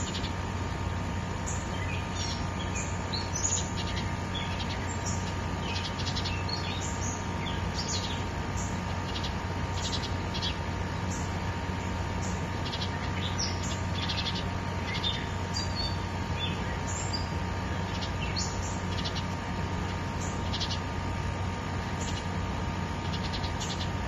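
Steady rush of a forest stream, with small birds chirping over it in short, high calls throughout.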